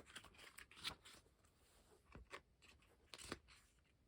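Photobook pages being turned and handled: a few short, faint paper rustles and soft taps, the loudest about a second in and again just after three seconds.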